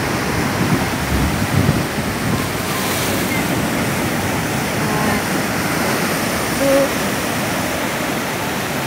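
Heavy surf from a rough sea breaking on a rocky shore: a loud, steady roar of crashing and washing water, with a surge swelling about a second in.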